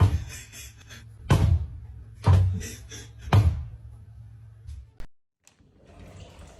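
Four heavy thumps, roughly a second apart, over a low steady hum, cutting off abruptly about five seconds in.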